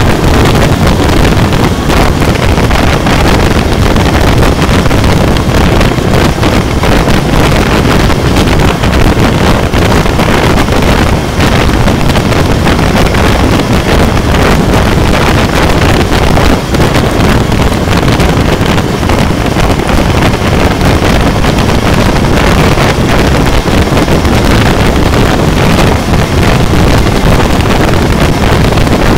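Steady loud wind rush on the microphone of a Honda CB400 motorcycle cruising at highway speed, with the bike's engine and road noise mixed underneath.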